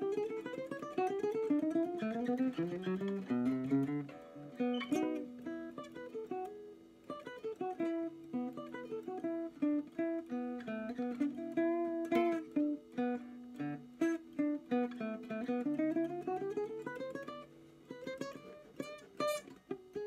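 Ibanez GA35TCE nylon-string classical guitar played fingerstyle: arpeggiated chords over held bass notes, with runs of notes climbing in pitch near the start and again near the end.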